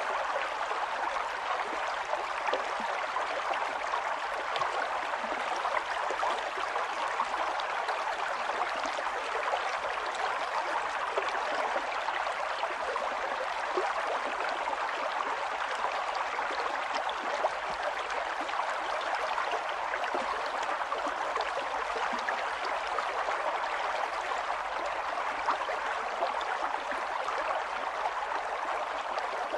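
Water running in a small mountain stream, a steady rush with many small splashes throughout.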